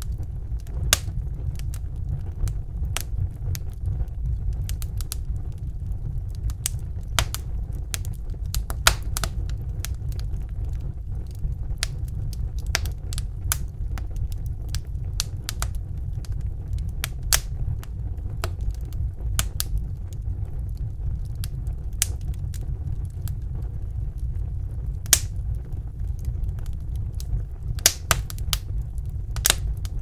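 Wood fire crackling in a fireplace: irregular sharp pops and snaps, a few louder ones scattered through, over a steady low rumble of the burning.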